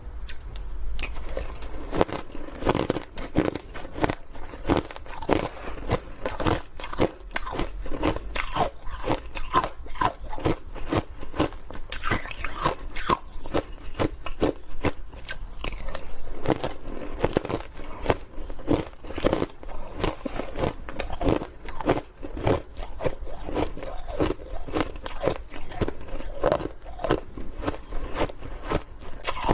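A person crunching and chewing mouthfuls of shaved ice mixed with small ice cubes, close to the microphone: a dense run of sharp crunches, several a second, without a break.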